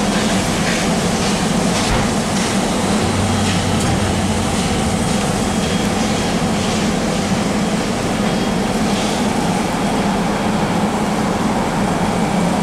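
Steam-hauled train headed by the Garratt locomotive 6029 running along the line, heard from aboard: a steady rumble of wheels on the rails, with light clicks.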